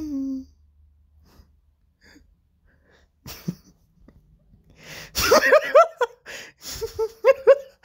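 A person in a fit of laughter: a held voiced sound breaks off at the start, then after a near-silent pause a sudden sharp breath about three seconds in, and from about five seconds in rapid, high-pitched bursts of laughter, about five a second.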